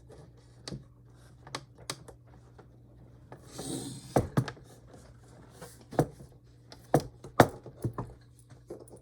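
Irregular sharp plastic clicks and knocks from the monitor stand parts being handled and pushed against the monitor's mount, which is stuck. There is a brief rustle about four seconds in, and the loudest knock comes near the end.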